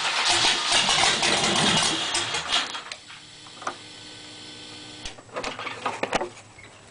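Chevrolet LT1 350 V8 running just after starting, loud and rough. About three seconds in its sound drops sharply, leaving a quiet steady hum, with a few clicks and uneven bursts of sound near the end.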